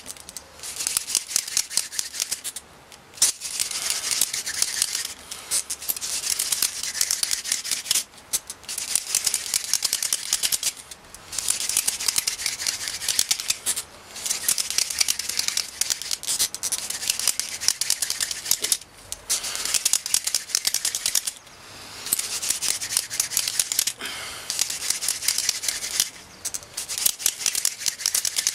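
Hand-drill fire-making: a 22 cm mullein spindle spun fast between the palms, its tip grinding into a linden hearth board, giving a rapid scratchy rasp. It comes in runs of a few seconds with short breaks between them, as the hands go back to the top of the spindle.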